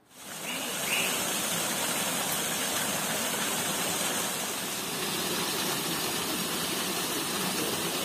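Small woodland stream spilling over rocks in little falls into a shallow pool: a steady rush and splash of running water that swells in over the first second.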